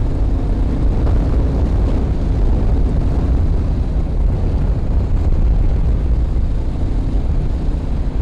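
Wind rushing over the microphone of a moving motorcycle, a steady low rumble, with the Royal Enfield Meteor 350's single-cylinder engine running faintly underneath.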